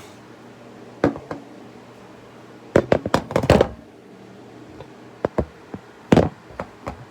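Irregular knocks and taps from handling a window air conditioner and its parts during disassembly: one knock about a second in, a quick cluster of knocks around three seconds in, and a few sharp taps near the end.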